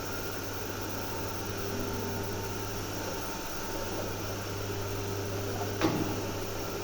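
Machine for window rubber seals running with a steady electric hum and whir, with one sharp click a little before the end.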